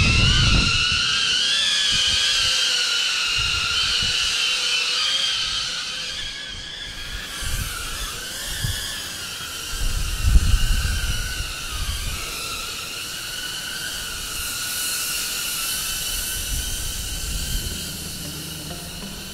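Cinewhoop FPV quadcopter's motors and ducted propellers whining in flight, a high whine of several steady tones that grows fainter after about six seconds. Low gusty rumbles come and go in the middle.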